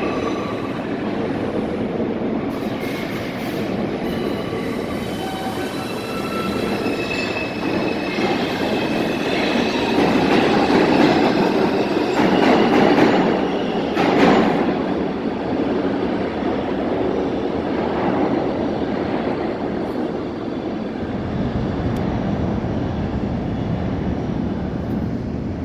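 New York City subway train running through an underground station: wheels squealing with several high steady tones in the first few seconds, the run of the cars loudest from about ten to fifteen seconds in, then easing off as it pulls away.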